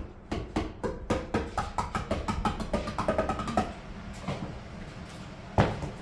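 Rhythmic percussive tapping, about four taps a second, with a few pitched notes, stopping a little before four seconds in. One sharp knock near the end.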